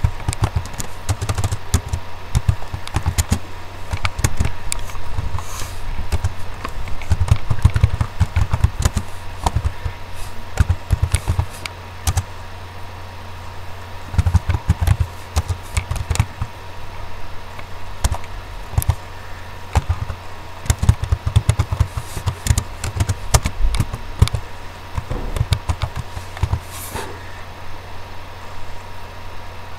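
Computer keyboard typing in irregular runs of clicks, over a steady low hum.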